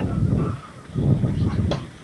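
Gusty wind buffeting the microphone in uneven low rumbling surges, easing off near the end.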